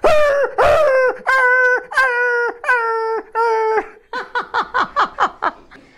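A man imitating a dog yelping in pain from a blow with a stick: a run of about six loud held cries, each dropping in pitch at its end, then a quick run of short cries at about six a second.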